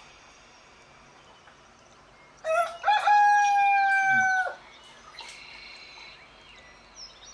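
A rooster crows once: a single loud crow of about two seconds that rises at the start, holds and drops off at the end.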